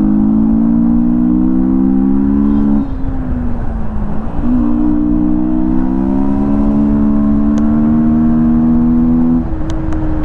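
Yamaha MT-15's single-cylinder engine with an open air filter, accelerating under way: the engine note climbs steadily, drops off about three seconds in as the throttle closes for a shift, then climbs again and eases near the end.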